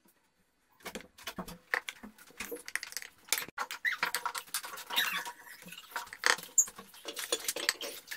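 A wooden spatula scraping and tapping against a ceramic plate while scooping cooked barkoukech (large couscous pearls). It makes a quick, irregular run of scrapes and clicks that starts about a second in.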